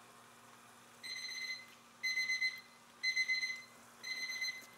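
A timer alarm going off: four high electronic beeps about a second apart, each a rapid trill lasting about two-thirds of a second, starting about a second in.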